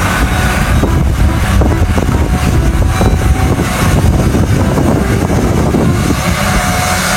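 Loud, steady vehicle engine noise: a deep rumble with a rushing hiss over it.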